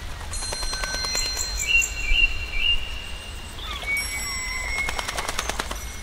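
Small songbirds chirping and whistling, with high thin notes about two seconds in and a rapid ticking trill near the end, over a steady low rumble.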